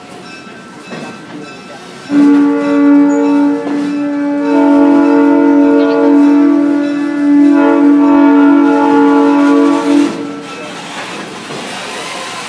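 A train's locomotive sounds a multi-note chord signal over the steady rolling noise of the passenger car. The signal starts about two seconds in and is held as long blasts with two brief dips between them, then ends with a short toot near the end.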